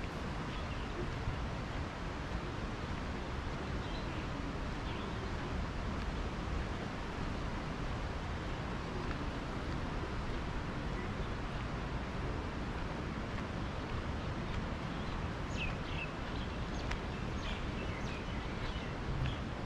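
Steady outdoor background noise with a low rumble, and a few short bird chirps from about three-quarters of the way through.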